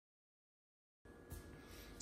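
Dead silence for about a second, then faint room tone with one soft bump.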